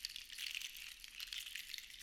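Seashells rattling and clicking against each other, a steady dense patter of tiny clicks.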